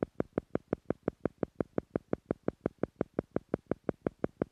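Theta-frequency pacing sound for meditation: short, even electronic beats, about six a second, meant to slow the listener's brainwaves to the theta level.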